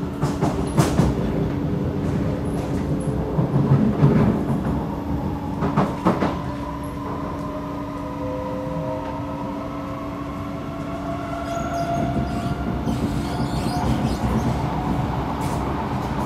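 Kawasaki C751B metro train heard from inside the car, pulling away and accelerating: wheels clatter sharply over track joints a few times in the first six seconds over a steady hum, then the traction motors' whine rises in pitch in several tones as the train gathers speed.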